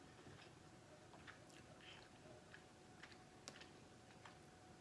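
Near silence with faint chewing and a few soft, scattered clicks of eating: a person chewing food with their mouth close to the microphone.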